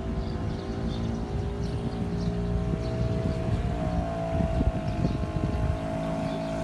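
Small river boat's motor running steadily, a constant engine drone.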